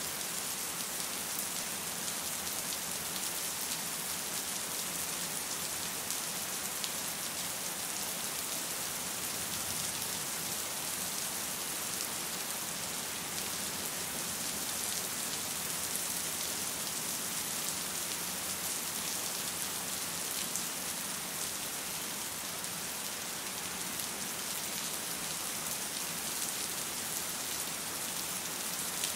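Steady rain: an even, bright hiss of many falling drops pattering on a surface, with no let-up.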